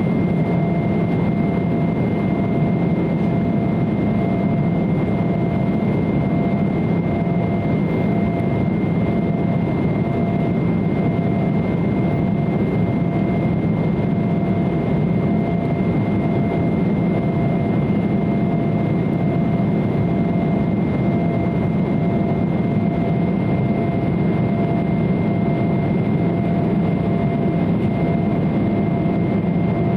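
Steady cabin noise inside an Embraer 170 airliner, its General Electric CF34 turbofans running at constant power: an even roar with two thin, steady whining tones over it, unchanging throughout.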